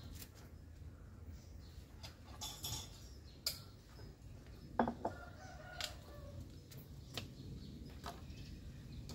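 Chicken clucking and calling in the background, with one louder call about five seconds in, over a few light clicks and rustles of a plastic bag being handled.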